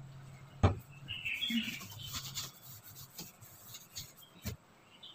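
Handling of a kitchen range hood's parts: a sharp knock under a second in, then a stretch of rubbing and scraping, then a few light clicks.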